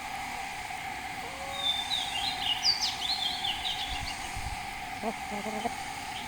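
A small bird chirping: a quick run of short notes and fast sweeps starting about a second and a half in and lasting about two seconds, over a steady outdoor hum.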